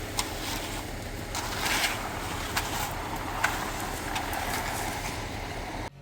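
An engine running steadily, with a few short knocks and scrapes over it. The sound cuts off suddenly near the end.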